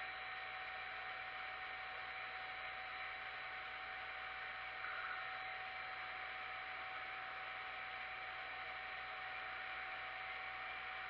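Steady workshop background: an even hiss with a thin, steady hum running under it. No cutting is heard.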